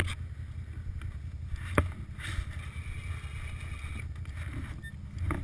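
Quad (ATV) engine running with a steady low rumble, with one sharp knock about two seconds in.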